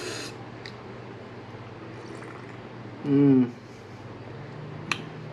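A person slurping an oyster shot from a shot glass: a short, noisy slurp at the start, then a brief hummed "mm" about three seconds in, and a small click near the end.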